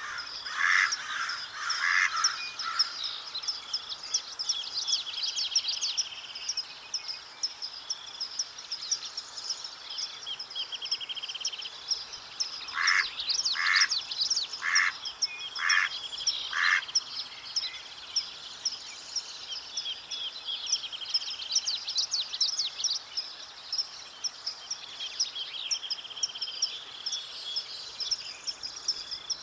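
Mallard quacking in evenly spaced series: about four quacks at the start and five more about halfway through. Beneath them runs a constant chorus of high chirps and trills from other birds.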